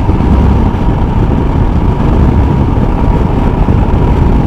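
Motorcycle riding at road speed: a steady engine note mixed with wind rush on the rider's microphone.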